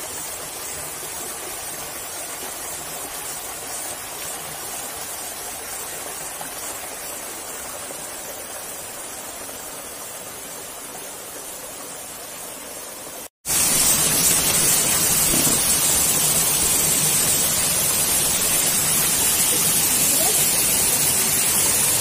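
Waterfall rushing steadily. About halfway through, the sound breaks off for an instant and comes back louder and brighter.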